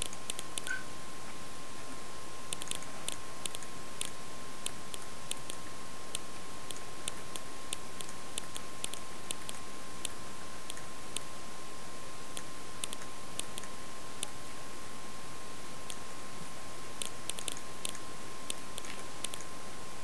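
Computer mouse clicking in short irregular runs, a few sharp clicks a second, over a steady hiss with a thin high tone.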